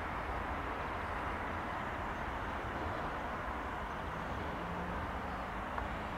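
Steady rushing noise of an Italo high-speed electric train approaching from a distance, an even sound with no rise in loudness yet.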